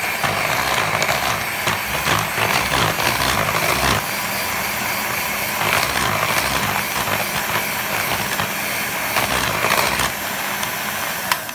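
Electric hand mixer running steadily, its two beaters whipping buttercream in a bowl. It stops at the very end.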